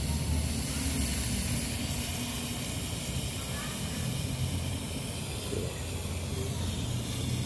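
Compressed gas hissing steadily out of an inverter air conditioner's compressor line through the service valve as the pressure from a compression test is slowly bled off, carrying compressor oil mist with it. A low hum runs underneath.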